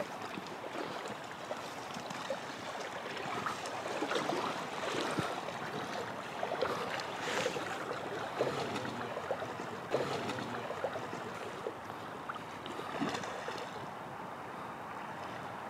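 River water running and splashing around a drifting boat, with many small irregular splashes over a steady rush.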